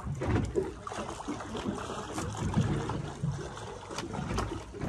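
Wind buffeting the microphone over water lapping against a boat's hull at sea, with a couple of faint clicks.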